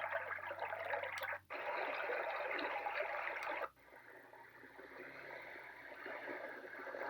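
Sound machine playing recorded water sounds through its small speaker, switched between tracks twice: a steady rushing-water sound breaks off sharply about a second and a half in and another follows, then after a second sudden cut about three and a half seconds in, a quieter wash of water begins and swells near the end, the start of its beach-waves sound.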